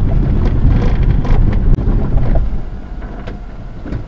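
Suzuki Carry DD51 mini truck's small three-cylinder engine and road noise heard from inside the cab while driving, a heavy low rumble. About two and a half seconds in it drops away as the truck slows to a stop.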